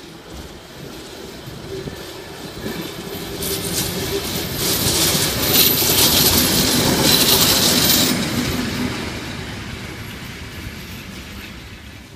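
Czech class 749 diesel locomotive (749.121) passing close by at low speed. Its engine and wheels grow louder to a peak as it goes past, about five to eight seconds in, then fade away.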